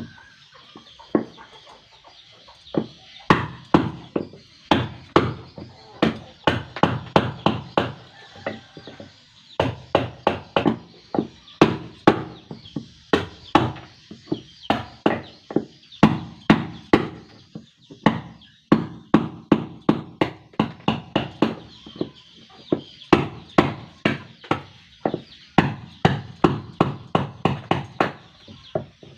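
A tool striking wood over and over in quick runs of about two to three blows a second, with short pauses between the runs, during work on a wooden boat hull.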